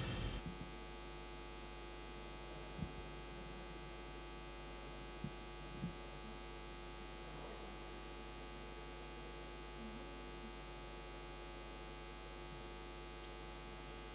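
Steady electrical mains hum from the sound system, made up of many steady tones, with a few faint clicks a few seconds in. Music fades out at the very start.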